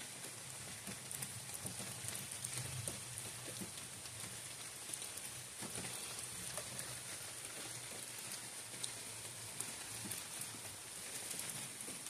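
Steady rain falling on a leafy forest canopy, with many separate drops ticking close by throughout.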